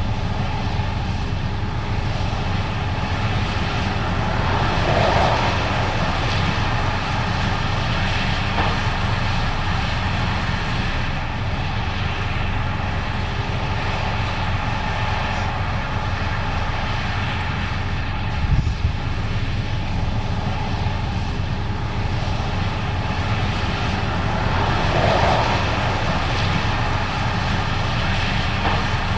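Case IH 8250 Axial-Flow combine running steadily under load while harvesting corn, a dense mechanical drone with an engine hum beneath it; it swells briefly about five seconds in and again near the end.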